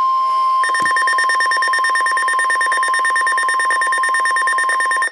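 NOAA Weather Radio warning alarm tone, a steady 1050 Hz tone that signals a warning is about to be read. About half a second in, a higher, rapidly pulsing alarm beep joins it, and both cut off near the end.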